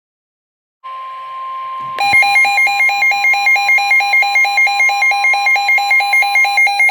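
Emergency alert tones heralding a severe thunderstorm warning: a steady high tone starts about a second in, and about a second later a loud warbling alarm tone joins it, pulsing about three to four times a second.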